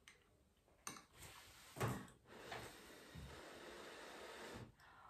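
A teaspoon clicking and knocking against a small bowl of oatmeal as it is scooped: a sharp click about a second in and a louder knock a second later, then only faint room noise.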